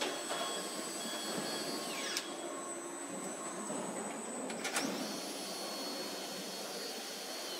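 Car assembly-hall machinery noise: a steady hiss with high whines, one winding down in pitch about two seconds in and another near the end, and sharp clacks about two and five seconds in.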